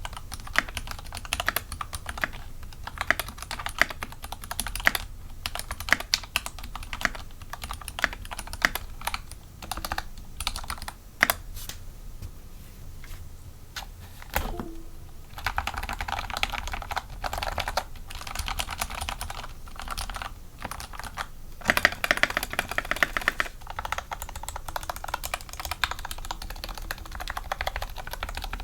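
Mechanical keyboard with lubed Tealios linear switches and GMK keycaps being typed on, a steady patter of keystrokes. About halfway through it turns to dense bursts of random key mashing.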